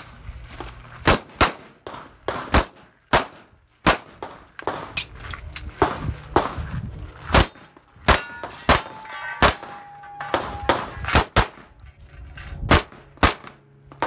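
About twenty pistol shots fired in quick, irregular strings, with steel targets clanging and ringing as they are hit; one plate rings on for about a second past the middle.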